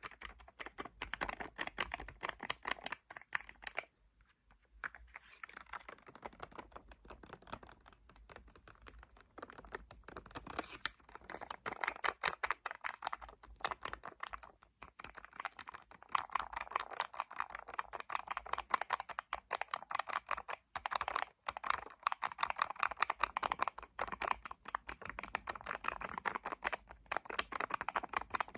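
Rapid tapping on hard objects with the fingers, a fast, continuous patter of small clicks like typing. There is a brief lull about four seconds in, and the tapping is denser and louder in the second half.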